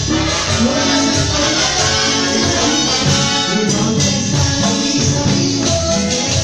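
A live Latin band playing dance music, with brass and hand percussion over a steady beat and a singer on a microphone.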